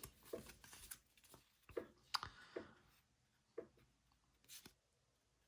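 Faint, scattered taps and brushing slides of trading cards being handled as a stack of Donruss football cards is flipped through, with a few isolated clicks near the end.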